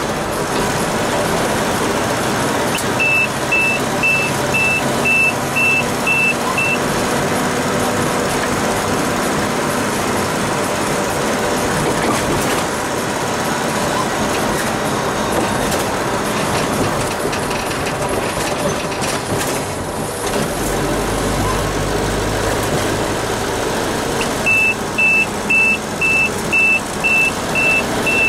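Mercedes 208 D van's diesel engine running steadily. An electronic beep at one high pitch repeats about twice a second, for about four seconds starting about 3 s in, and again near the end. A deeper rumble swells for a few seconds shortly before the second run of beeps.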